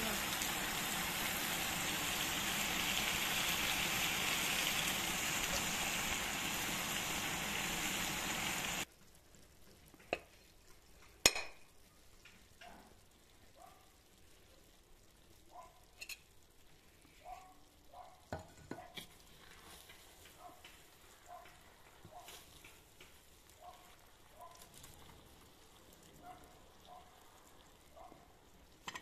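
Pilaf in a cast-iron kazan sizzling and steaming with a steady hiss for about nine seconds, which cuts off abruptly. A metal ladle then scrapes and knocks against the rice and the kazan, with one sharp loud knock shortly after the cut and quieter clicks after it.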